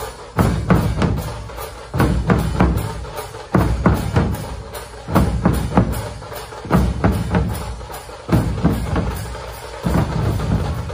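A Maharashtrian dhol band: many large barrel drums beaten together, deep booms and sharp strokes in a loud repeating pattern that starts afresh about every second and a half.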